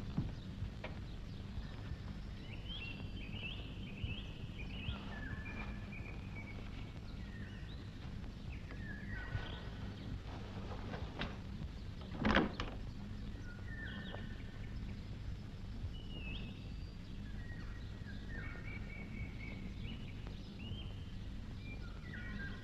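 Small birds chirping in short, scattered calls over a steady low rumble, with one sharp knock about twelve seconds in.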